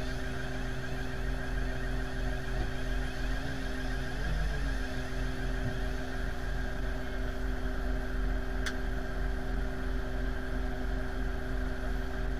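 Pushback tug's engine idling steadily: a low, even drone with a constant hum over it. One sharp click a little past halfway.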